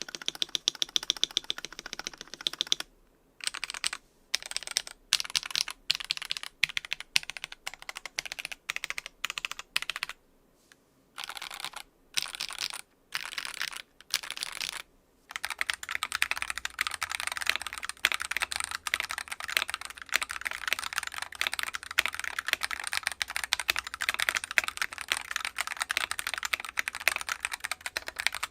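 Mechanical keyboard fitted with Glorious Fox linear switches being typed on. The keystrokes come in short bursts with brief silent pauses for the first half, then become continuous rapid typing from about halfway in.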